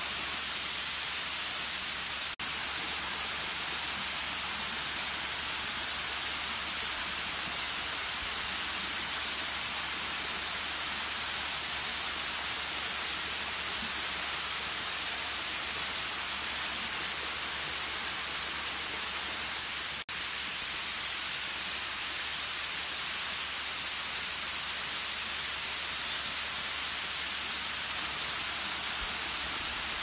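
Waterfall, a steady rushing hiss of falling water, unchanging in level, with two very brief dropouts about two seconds in and about twenty seconds in.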